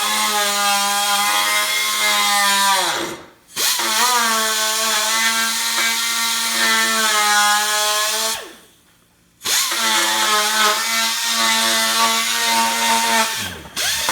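Handheld electric power tool, drill-like, run three times in bursts of about four to five seconds. Each burst holds a steady pitch, and the motor winds down in falling pitch at each release.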